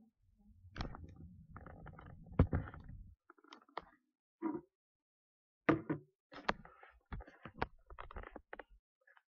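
Close handling noise from someone moving around next to the microphone: a rumbling scrape for the first few seconds, then a scatter of sharp knocks, clicks and thumps, a few of them loud.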